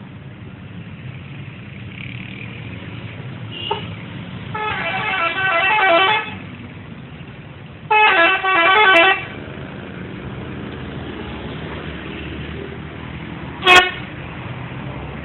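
Pandawa bus's telolet horn, a multi-tone musical horn, playing quick runs of changing notes: a brief toot about four seconds in, a longer melody around five to six seconds, another around eight to nine seconds, and one short loud blast near the end. A steady low engine and traffic rumble runs underneath.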